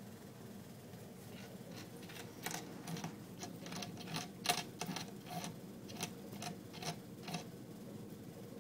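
A cat licking the metal spout of a gravity-fed rabbit water bottle: a run of light, irregular clicks, about three a second, starting about a second and a half in and stopping near the end.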